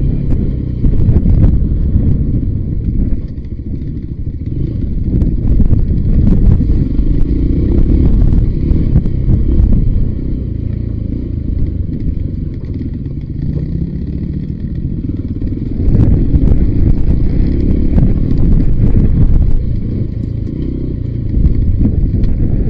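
Voge 300 Rally single-cylinder motorcycle riding down a rough dirt trail, its engine and loudness rising and falling, with heavy wind buffeting on the microphone and scattered knocks and clatter.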